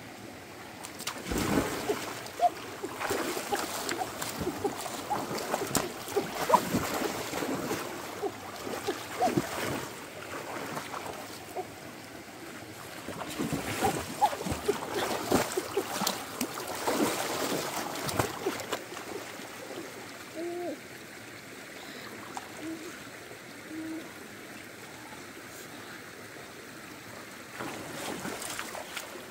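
Shallow stream water splashing and sloshing as someone wades and grabs at fish with her hands, in two long bouts and again near the end, over the steady rush of the stream.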